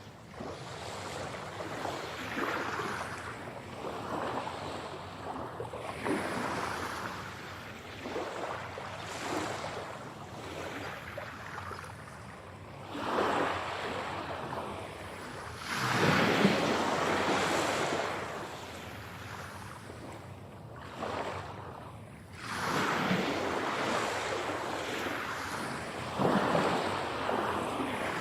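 Ocean waves breaking and washing up the shore in repeated surges every few seconds, a few of them much louder than the rest.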